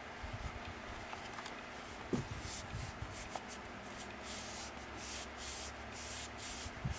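Hands rubbing and sliding over folded patterned paper pages, pressing the folds flat: a run of short scratchy paper strokes, about two a second in the second half, with a soft knock about two seconds in and another near the end.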